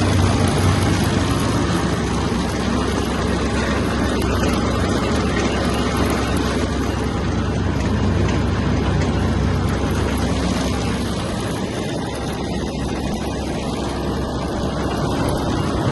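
Claas Variant 380 round baler running in a test spin, its pickup and rotor turning, over the steady drone of the tractor engine driving it. The deepest part of the drone drops a little about eleven seconds in.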